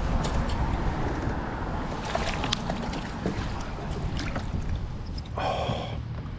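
Wind buffeting the microphone over water, with scattered sharp clicks and splashes. A brief buzzing tone comes about five and a half seconds in.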